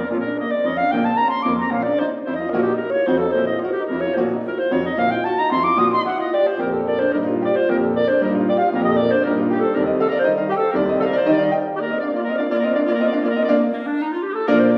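Clarinet and piano playing a fast, loud Allegro passage. The clarinet runs in quick flowing figures over a steady, driving piano accompaniment.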